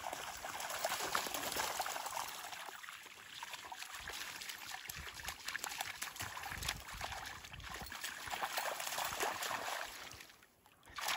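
Two dogs wading through shallow seawater, their legs and paws sloshing and splashing in the water with many small splashes. The sound drops away briefly near the end.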